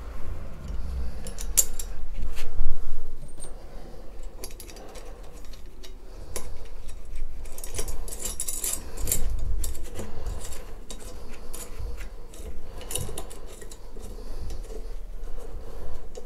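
Small metal clinks, clicks and scrapes as a U-clip and its bolt are worked into place by gloved hands to clamp a chainwheel onto a gearbox handwheel, with dull bumps of the parts being handled.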